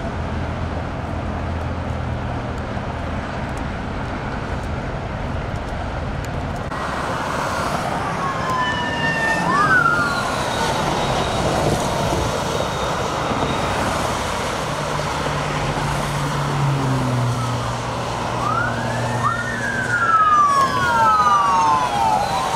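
Steady traffic noise, then from about seven seconds in police car sirens rising and falling as patrol cars pass on the freeway, with several sirens overlapping near the end.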